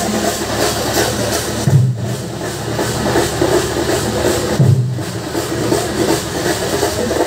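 Music with a deep, drum-like hit about every three seconds over a busy, steady backing.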